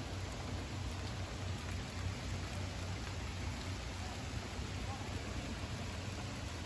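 Steady tropical-storm rain falling on pavement, lawns and parked cars, an even hiss with a constant low rumble underneath.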